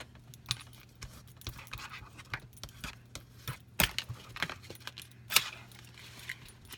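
Paper being folded and handled on a cutting mat, with scattered rustles, light taps and clicks and two sharper knocks about four and five and a half seconds in.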